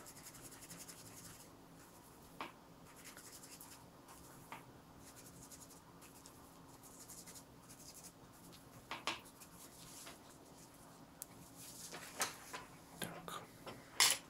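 Faint handling noises: scattered small clicks and taps, growing into a cluster near the end, with the loudest click as a watercolour paint box is brought up by hand. A low steady hum runs underneath.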